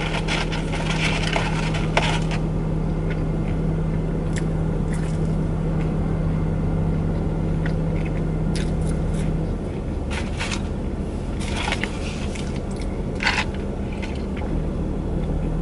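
A person chewing and biting McDonald's fries and a burger, with scattered short crunches and scrapes. Underneath is a steady low hum inside a car cabin, which drops slightly about two-thirds of the way through.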